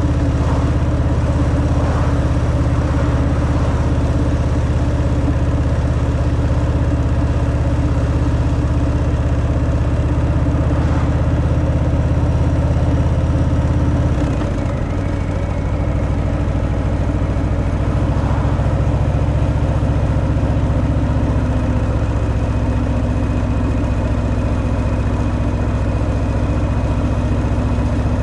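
Harley-Davidson Fat Boy's Milwaukee-Eight 114 V-twin running steadily through its stock exhaust while riding. About halfway through, the engine note dips and changes pitch, then settles steady again.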